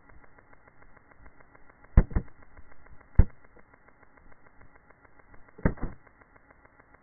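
Sharp knocks of a tumbling action camera striking hard surfaces after it has flown off its suction-cup mount: a double knock about two seconds in, a single knock a second later, and another double knock near the end.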